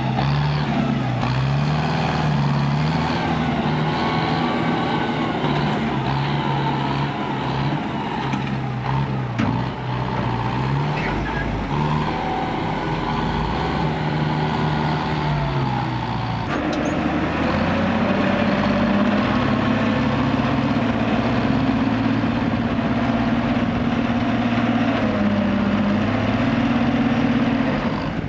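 Ten-wheel dump truck's diesel engine running and revving, its pitch rising and falling as the truck pulls away. About halfway through, the sound switches abruptly to another dump truck's diesel engine, held at steady raised revs while the bed is tipped and the dirt load slides out.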